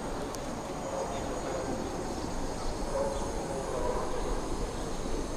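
Steady city street ambience with the even noise of distant traffic.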